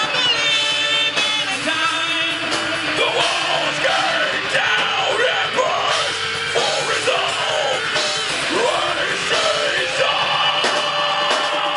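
Live rock band playing loud, a singer's voice over guitar and drums.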